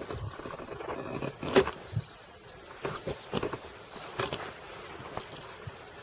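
Bees buzzing around zucchini blossoms, with irregular knocks and rustles close by, the loudest about a second and a half in.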